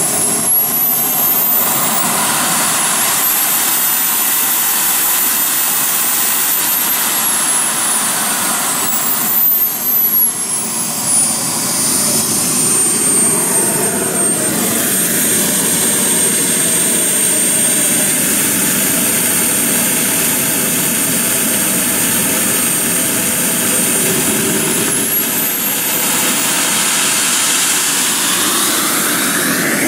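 A radio-controlled model jet's small turbine engine running on the ground, with a loud high whine. It spools up about two seconds in and holds, drops back to a lower steady whine around ten seconds in, then spools up again near the end as the throttle is run up.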